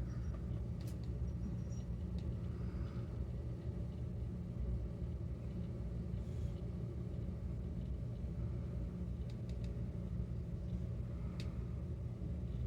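Steady low mechanical rumble, like an engine or motor running, with a few faint clicks over it.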